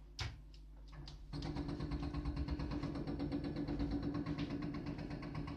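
A single sharp knock, then about a second in a JCB backhoe loader's diesel engine revs up and holds under hydraulic load while the digger arm works, a steady drone with a fast, even pulsing that stops abruptly near the end.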